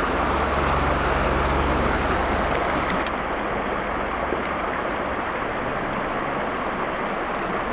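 Shallow mountain stream running over rocks, a steady rush of water, with a low rumble underneath for the first three seconds or so.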